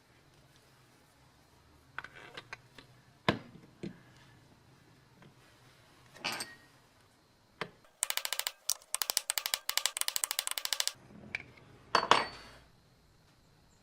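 Small metal parts and hand tools being handled during throttle body work: scattered clicks and knocks, then a fast, even run of clicks lasting about three seconds, and a sharper knock near the end.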